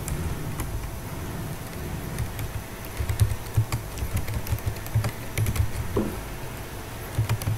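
Computer keyboard keys clicking in short irregular runs as a few words are typed.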